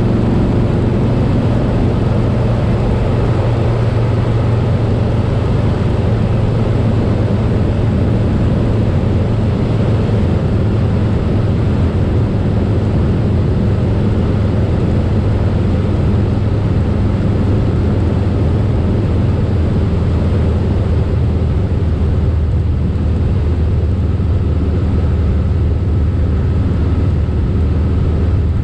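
Harley-Davidson Softail Slim's V-twin engine running steadily at highway cruising speed, a constant low drone under a steady rush of wind and road noise.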